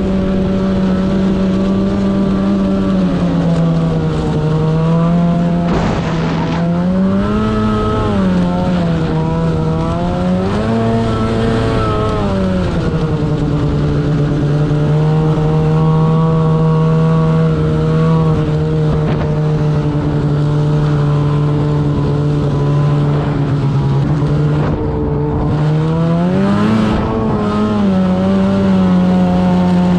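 Snowmobile engine running at speed, mostly steady in pitch, rising and falling a few times as the throttle is opened and eased.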